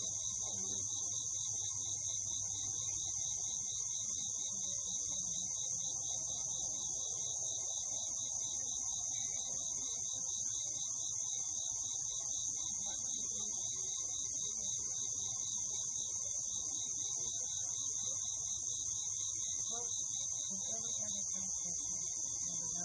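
Chorus of crickets and other insects: a steady high-pitched buzz with a fast pulsing trill beneath it, unchanging throughout.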